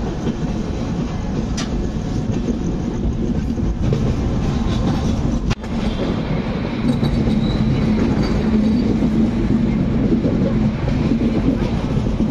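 Kumbha Express passenger train running on the rails, heard from an open coach door: a steady rumble of wheels on track with a few sharp knocks, growing louder about six and a half seconds in.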